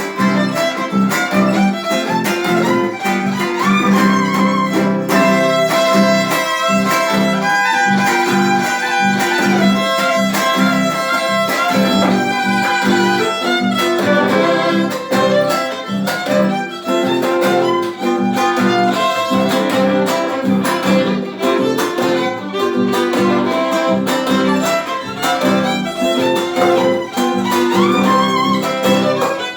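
Instrumental Argentine gato: strummed guitar keeping a steady, driving rhythm under a sustained, bending melody line.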